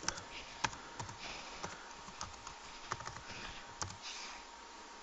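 Typing on a Cr-48 laptop's keyboard: irregular key clicks that thin out after about four seconds.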